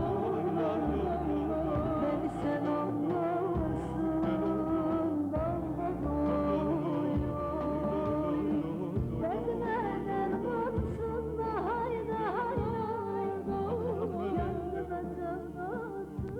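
Turkish arabesk-style song music with a wavering melodic line over a steady low bass, beginning to fade out near the end.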